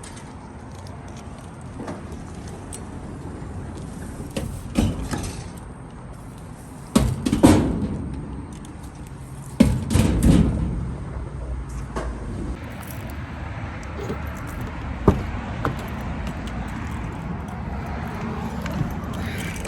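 Steady low rumble of a car on the move, with several loud knocks and thumps and a jangle of keys over it.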